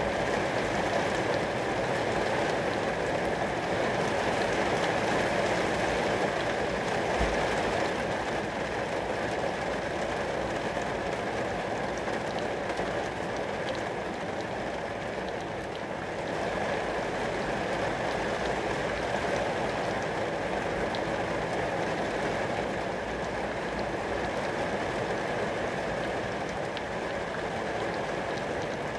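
Rain falling steadily onto glass.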